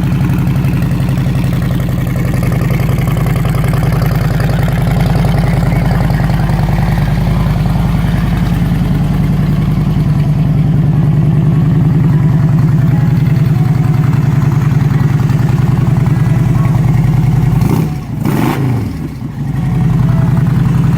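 Harley-Davidson Road Glide's air-cooled V-twin engine idling steadily. Near the end the steady note briefly dips and wavers, then settles back.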